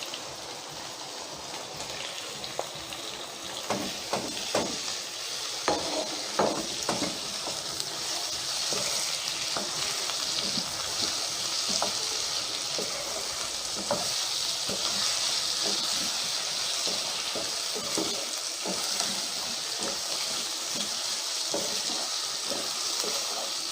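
Spice-marinated chicken frying in hot oil in a kadai with onions and potatoes, sizzling steadily, with a spoon knocking and scraping in the pan as it is stirred. The knocks come thickest during the first few seconds, and the sizzle grows louder from about eight seconds in.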